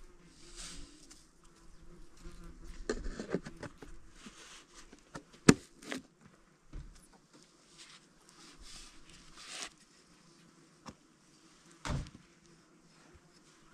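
An insect buzzing, with scattered knocks and scrapes; a sharp click about five and a half seconds in is the loudest sound.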